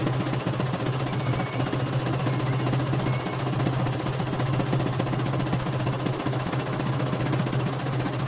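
CNY computerized embroidery machine stitching a design, its needle bar going up and down rapidly with a steady motor hum under a fast, even clatter, while the hoop carriage shifts the fabric. The machine is running smoothly after servicing.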